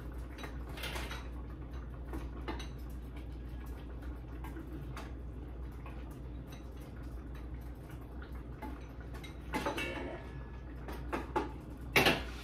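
Spoon clinking and scraping in a cooking pot while food is dished out, with scattered light knocks, a small cluster of clatters about ten seconds in and a louder clack near the end. A low steady hum runs underneath.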